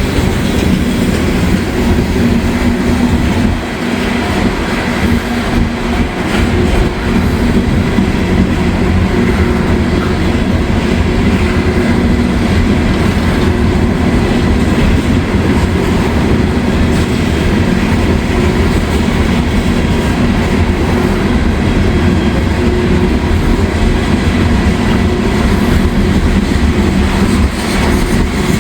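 Loaded coal hopper cars of a long freight train rolling slowly past: a steady, loud noise of steel wheels running on the rails.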